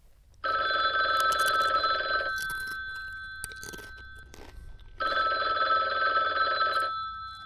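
Telephone ringing twice, each ring about two seconds long and fading slowly after it stops, as an incoming call waits to be answered.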